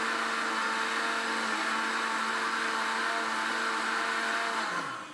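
Electric blender running steadily, blending a thin yogurt drink. Near the end it is switched off and the motor's hum falls in pitch as it winds down.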